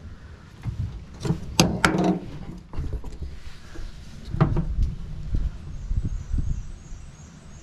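Clicks and knocks of a plastic 7-pin trailer plug being held and shifted against the thin steel side of a pickup bed, its outline being marked. A cluster of sharp clicks comes about a second and a half in, and a duller knock a little past the middle.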